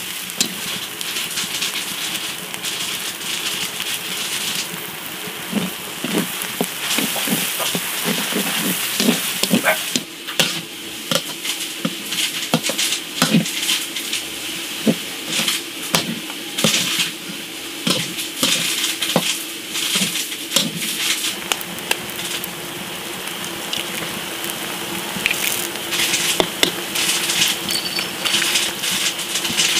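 Instant noodles and sweetcorn sizzling in a hot wok, with a utensil clicking, knocking and scraping against the pan many times as they are stirred.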